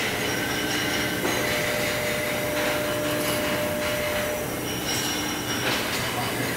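Oxy-fuel gas welding torch flame hissing steadily as it heats a copper tube joint on a steel pipe for brass brazing, with faint steady whistling tones under the hiss and a few brief surges in the noise.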